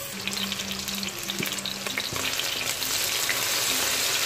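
Sliced onions frying in hot oil in a stainless-steel pot: a steady crackling sizzle that grows louder from about halfway through, as the onions are fried toward golden brown. A spoon stirs them near the end.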